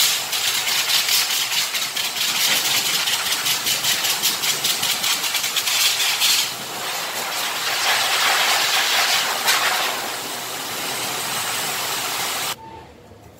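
Pet grooming blower dryer blowing air through its hose onto a Pomeranian's coat: a loud, steady rush of air that flutters rapidly through the first half and swells and eases as the nozzle moves. It stops abruptly near the end.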